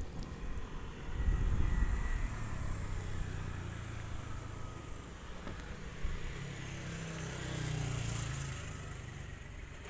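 A motor vehicle's engine passing, louder around eight seconds in, over a low uneven rumble.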